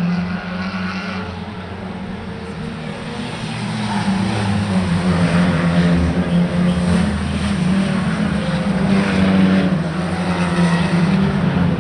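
Car engine running at a steady speed, getting louder about four seconds in.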